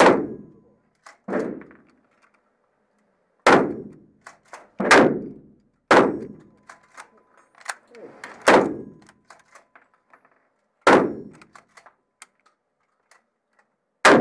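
Rifle fired single shots on an indoor range, about seven shots spaced one to two and a half seconds apart, each sharp crack followed by a short ringing echo off the range walls.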